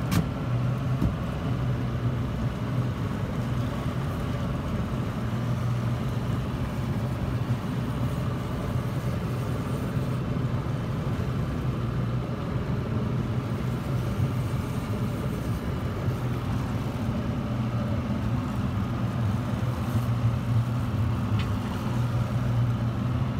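Fishing boat's motor running steadily at trolling speed, a constant low hum, with a single sharp click right at the start.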